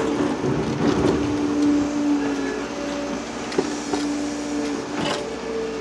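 Heavy diesel construction machinery running, with a steady whine on two pitches that comes and goes. A burst of rumbling noise comes about half a second to a second and a half in, and two sharp knocks follow later.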